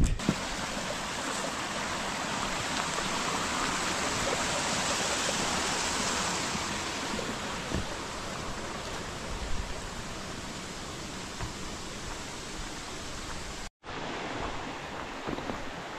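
Steady rushing of a mountain stream, an even hiss that is a little louder in the first half. It cuts out for an instant about three-quarters of the way through.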